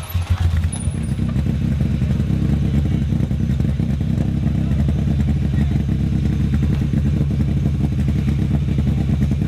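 Rally car engine running at steady revs, a low, even rumble with rapid firing pulses; the sound shifts briefly about half a second in, then holds steady.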